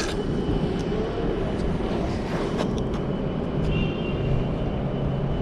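Steady city street traffic noise, a dense low rumble of passing vehicles, with a low engine hum coming in about two-thirds of the way through.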